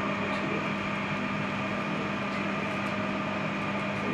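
Steady mechanical hum with a few faint high tones, like a room's ventilation or fan running, with a few faint light clicks.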